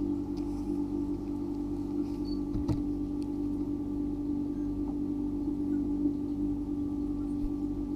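A steady, unchanging low hum with a single sharp tap about two and a half seconds in.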